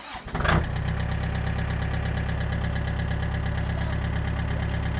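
Small tractor engine turned over by the starter and catching within about half a second, then idling steadily with an even, rapid beat.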